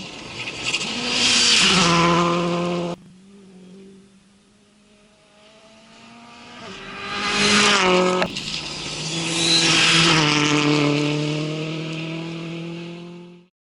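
WRC 2 rally cars passing at speed on a test stage, engines running hard with stepped changes in pitch at the gear changes. Each pass swells and fades, the sound breaks off abruptly twice between passes, and the last car fades before the sound cuts off near the end.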